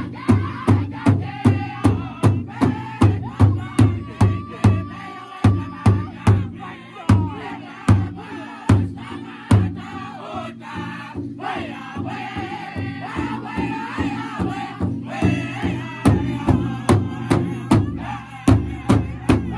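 Powwow drum group singing in high, chanting voices over a big drum struck in unison with sticks, about three beats a second. Around the middle the beat thins to a few spaced strikes, then drops away for a few seconds under the singing, and the steady beat returns near the end.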